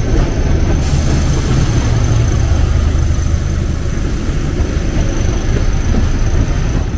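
ZDM-4A narrow-gauge diesel locomotive running past close by, its engine a steady low drone. Its passenger coaches then roll past on the rails, and the noise eases a little near the end.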